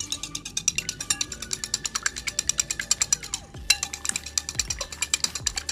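A wire whisk beating eggs in a ceramic bowl: fast, rhythmic clicking as the metal wires strike the sides of the bowl, several strokes a second.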